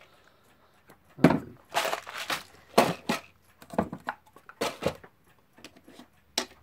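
Irregular knocks and clattering of small objects being handled and set down on a workbench, about seven separate hits over a few seconds.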